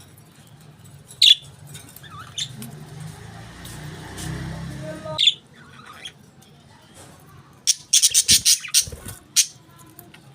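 Budgerigars chirping: a few sharp single calls, then a quick run of about eight chirps near the end.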